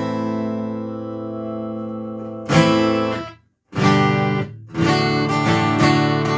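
Martin acoustic guitar strummed, chords ringing out, heard through its onboard pickup system. The sound cuts out to silence for a moment about halfway through, then strumming resumes in a steady rhythm.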